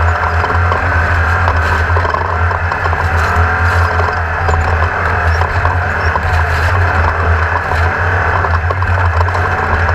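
Air-cooled Volkswagen engine of a 1600-class off-road race car running hard at speed, its note wavering up and down, with frequent knocks and rattles.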